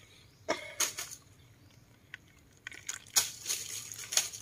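A wet catch of water beetles and shrimp is shaken out of a mesh trap net into a plastic bucket: dripping water and rustling scrapes. It comes in two bouts, about half a second in and again from about three seconds in until near the end.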